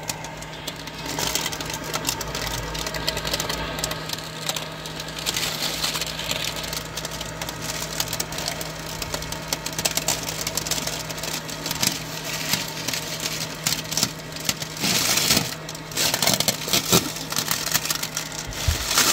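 Plastic window-tint film crinkling and crackling as it is peeled off the tractor cab glass and bunched in the hand, with the crackling getting louder and busier in the last few seconds. A steady mechanical hum runs underneath.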